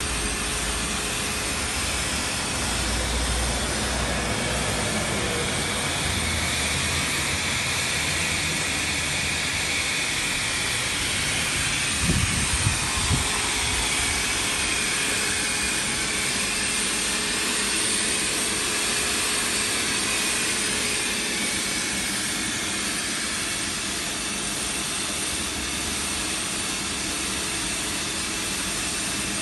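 Bosch PFS 5000 paint spray system's turbine running steadily, a constant whine and hiss of air driven through the hose to the spray gun. A few low thumps about twelve seconds in.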